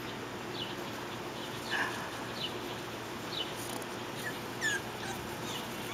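Faint, high, short falling squeaks from young puppies whimpering, scattered every half second to a second, with one slightly louder cry about two seconds in.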